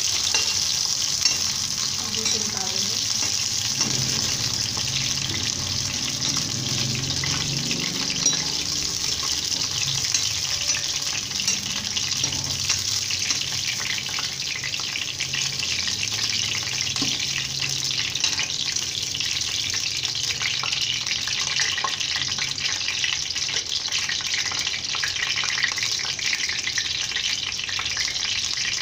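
Cauliflower florets sizzling and crackling steadily as they shallow-fry in hot oil in a steel kadai, with a steel spatula stirring them in the pan.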